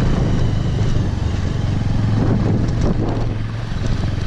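Motorcycle engine running steadily at road speed, with wind noise on the helmet-mounted microphone. About halfway through, another vehicle's engine briefly rises and falls as it passes close by.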